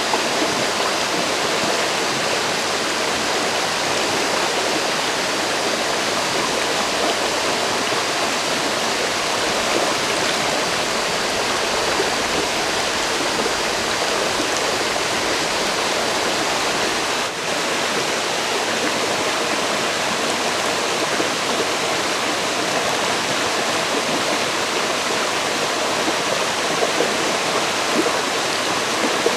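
Forest river flowing: a steady, dense rush of moving water, with a momentary dip in level partway through.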